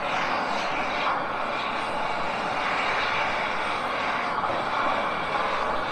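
Gas camping stove burner running with a steady, even hissing rush.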